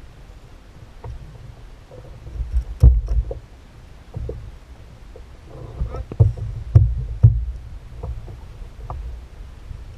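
Irregular knocks and thumps on a fishing kayak's hull and gear while a snapper is handled and unhooked, loudest in two clusters about three seconds and about seven seconds in, over a low steady rumble.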